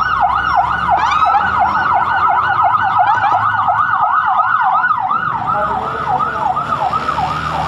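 Electronic emergency sirens of an escorted ambulance convoy wailing in a fast yelp, the pitch rising and falling about three times a second, with two sirens overlapping out of step for part of the time, over road noise.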